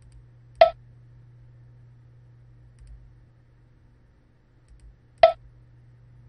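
Two sharp computer-mouse clicks, about four and a half seconds apart, over a steady low electrical hum.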